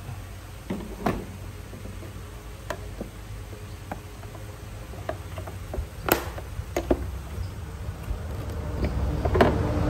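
Scattered light clicks and taps of a long pry bar against a plastic headlight housing as the lens's retaining clips are pried loose, the sharpest click about six seconds in, over a low steady hum. A rushing noise swells near the end.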